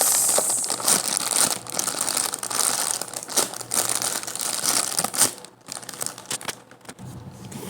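Crinkling and rustling as squishy toys are handled and swapped, with many small clicks; it gets quieter about five seconds in.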